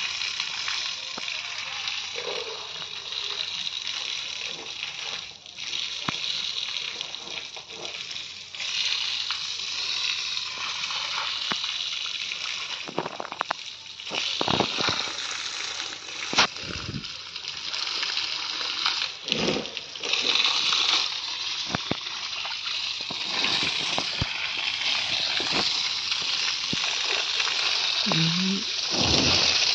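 Water jetting from a garden hose and splashing onto a wall, plants and brick paving: a steady gushing hiss that swells and fades as the jet moves.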